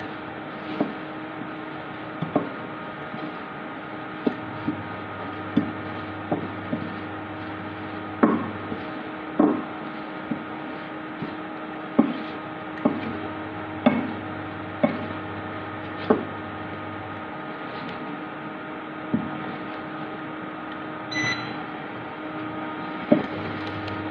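Egg frying in oil in a pan: a steady sizzle under a low hum that cuts in and out, with sharp knocks and taps of a metal spatula against the pan at irregular intervals as the egg is flipped and pressed.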